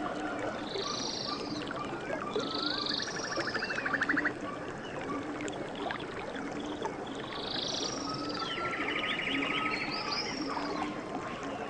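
Several birds calling over a steady rush of flowing water, with short buzzy trills, whistled notes and a low note repeating underneath.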